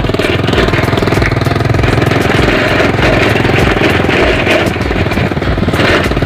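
Motorcycle engine running steadily while being ridden, heard from the rider's seat, with a fast, even pulsing.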